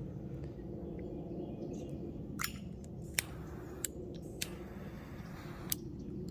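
A Zippo lighter being handled: several sharp clicks spaced irregularly over a few seconds, with a steady low hum underneath.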